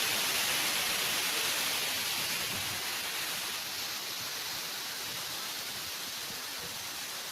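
Steady rushing noise of a waterfall, dropping a little in level about halfway through.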